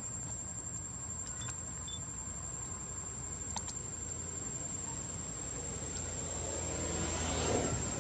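Insects droning outdoors: one steady, unbroken high-pitched whine over a low background hum.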